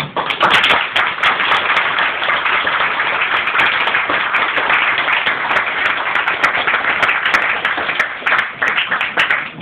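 Group of people applauding, many hands clapping. It breaks out all at once and goes on steadily, thinning a little near the end.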